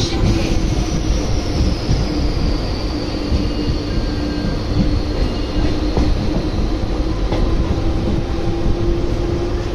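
Electric suburban train running, heard from on board near an open door: a steady, loud rumble of wheels on the track with a steady mid-pitched whine. A faint high whine slowly falls in pitch over the first few seconds.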